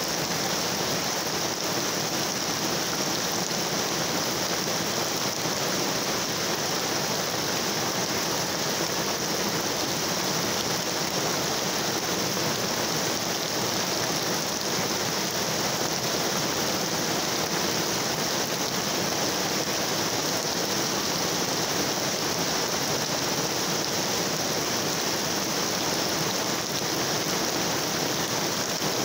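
Heavy rain pouring down steadily: an even, unbroken hiss of a downpour that never lets up.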